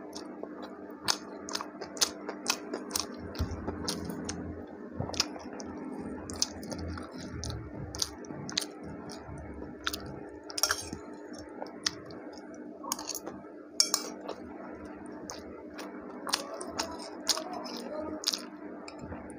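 Someone eating from a ceramic plate: chewing, with frequent short clinks and scrapes of a spoon against the plate. A faint steady hum runs underneath.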